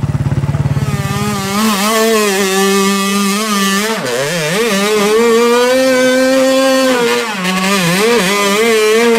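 Enduro dirt bike engine revving hard under load on a steep climb. Its high note wavers up and down as the throttle is worked. The note starts lower and pulsing, breaks and dips about four seconds in, then climbs and holds high again.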